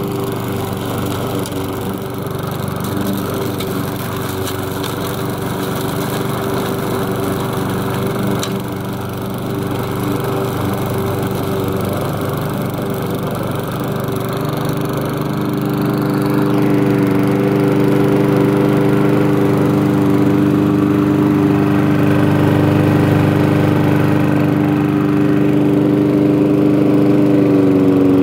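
Masport rotary lawn mower with a Briggs & Stratton four-stroke engine running steadily, its two-blade mulching cutter spinning under the deck. The engine note grows louder about halfway through.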